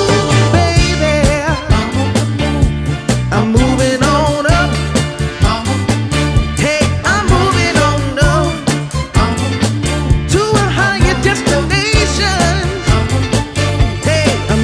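Background music with a steady beat, bass line and a singing voice.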